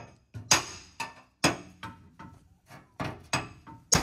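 Hammer blows on a steel truck bumper: about five sharp metallic strikes at uneven intervals, each ringing briefly.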